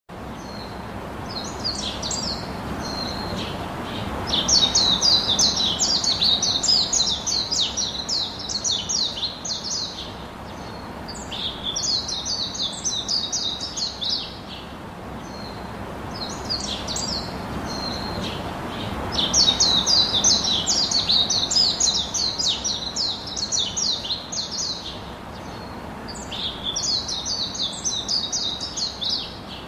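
Small birds chirping in rapid, high twittering bouts several seconds long, with pauses between, over a steady low background hiss.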